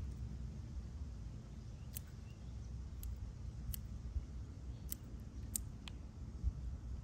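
Kitchen scissors snipping through green onion stalks: about six short, sharp snips at uneven intervals, most of them in the second half. A steady low rumble runs underneath.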